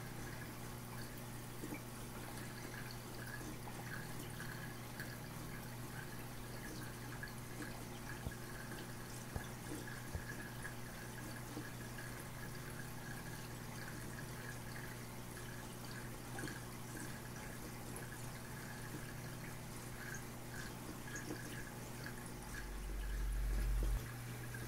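Reef aquarium's water circulation: steady trickling and dripping over a constant low equipment hum. Near the end a low rumble builds and then cuts off suddenly.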